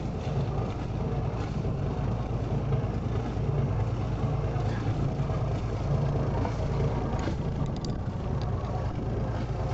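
A boat's engine running steadily, a low, even hum.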